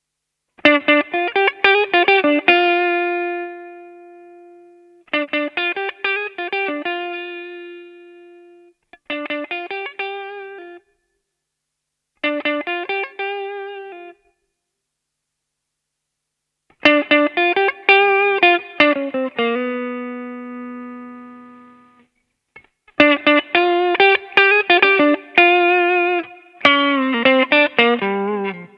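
Electric guitar played through an MXR CSP202 Custom Comp compressor pedal: short lead phrases of quickly picked single notes with string bends, several ending on a held note that rings on and fades out, with silent pauses between phrases.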